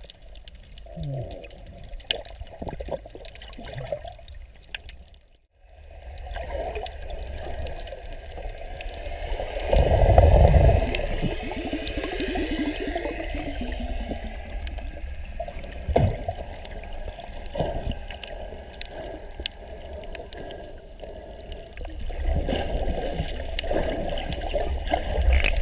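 Muffled underwater sound picked up by a submerged camera: water sloshing and bubbling, with a loud low gurgling rush about ten seconds in and a few sharp knocks later on.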